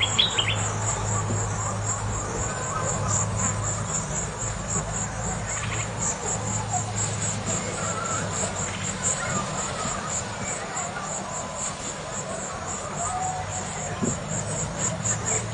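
Riverside insect chorus: a continuous, evenly pulsing high trill, with scattered short faint chirps and a low steady hum that fades in the middle and comes back near the end.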